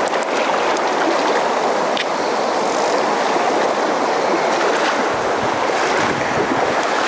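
Steady rush of a shallow, fast-flowing river running over a riffle. From about five seconds in, splashing and sloshing of waders pushing through the current is added.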